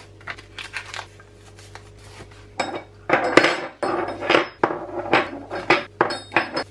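Metal cabinet bar handles clinking against one another and the worktop as they are unwrapped and set down, with plastic packaging rustling. Light handling for the first couple of seconds, then loud, quick clinks with a bright metallic ring.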